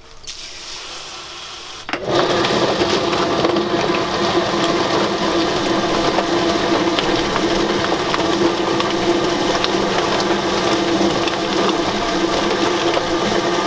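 A Kitchener chicken plucker's electric motor starts about two seconds in and runs with a steady hum, its drum spinning to pluck chickens. A hose nozzle sprays water into the drum, and a soft hiss of that spray comes just before the motor starts.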